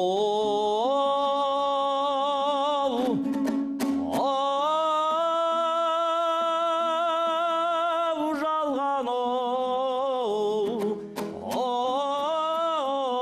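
Kazakh traditional song: a singer holds long wordless notes with a wide, wavering vibrato over instrumental accompaniment. The notes break off briefly about three seconds in and again near eleven seconds.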